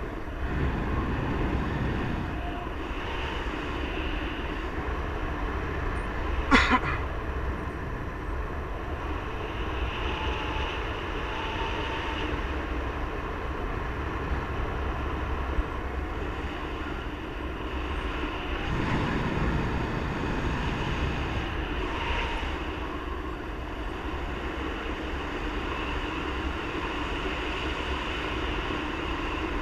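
Airflow rushing over the microphone of a paraglider pilot's camera in steady flight, a low rumbling noise that swells now and then with gusts. A single sharp knock about six and a half seconds in.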